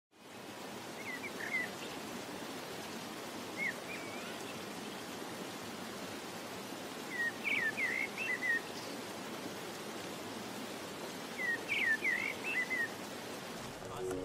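A bird chirping in short quick phrases, four times, over a steady outdoor hiss.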